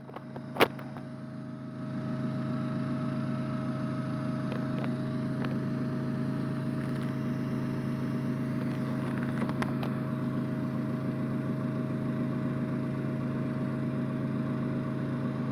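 Bee vacuum's motor running with a steady hum, stepping up in level about two seconds in, after two sharp clicks near the start.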